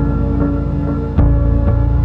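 Slowed-down instrumental music retuned to 432 Hz, with sustained ringing notes over a steady pulse of soft note strikes. A deeper bass note comes in about a second in.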